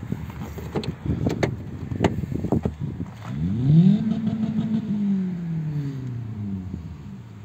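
A few seconds of clicks and knocks, then a vehicle engine sound that rises quickly in pitch, holds for about a second, and slowly falls away over the next few seconds.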